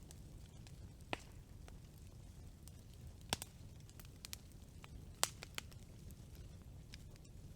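Wood campfire burning with a low steady rumble and scattered sharp crackles and pops, three louder ones about a second in, near the middle and at about five seconds.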